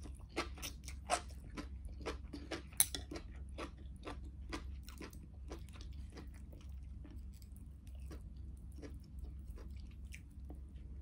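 Close-up mouth sounds of chewing a mouthful of thin noodles: quick wet clicks that come thickly for the first few seconds and then thin out to occasional ones.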